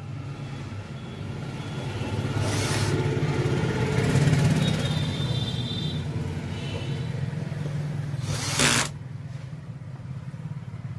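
Cordless drill-driver running as it drives screws into an aluminium amplifier case, with two short harsh bursts, one about two and a half seconds in and a louder one near the end.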